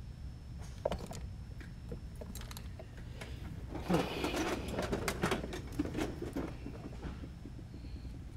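Hand tools and small drone parts clicking and clattering on a silicone work mat, busiest from about four to six and a half seconds in, over a steady low hum.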